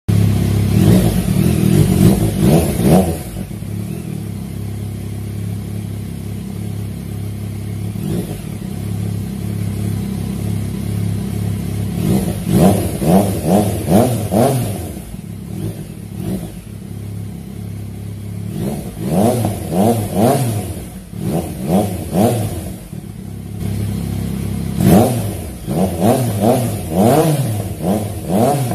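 Yamaha MT-09 three-cylinder engine fitted with an aftermarket exhaust, idling and blipped by the throttle in quick rev bursts: a few sharp revs at the start, a cluster around the middle, and more near the end, settling back to idle in between.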